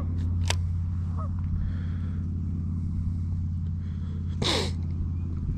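Strong wind buffeting the microphone, a steady low rumble, with a short, sharp noisy burst about four and a half seconds in.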